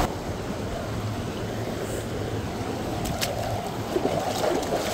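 Shallow stream of running water flowing over rocks and pebbles, with a few light splashes of bare feet stepping into it, about three seconds in and again near the end.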